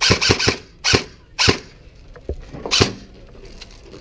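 A run of about six sharp, loud cracks close to the microphone at uneven spacing: three in quick succession right at the start, then single ones about a second, a second and a half and nearly three seconds in.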